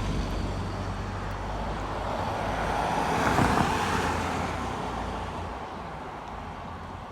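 Road traffic passing through an intersection: a vehicle goes by, loudest about three to four seconds in, then fading away.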